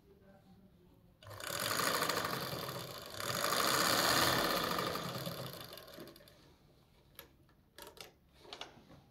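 A small machine running fast in two runs with a brief break between them, the second run longer and fading away at its end. A few light clicks follow near the end.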